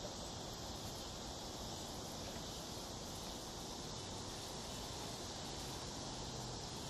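Steady outdoor background ambience: an even, unbroken hiss with no distinct events.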